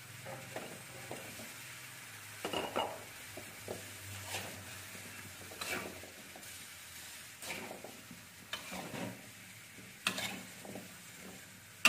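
Metal spatula scraping and clinking against a metal wok as chicken, potato and carrot pieces are stirred over the flame, a sharp stroke every second or two. A faint, steady sizzle sits underneath.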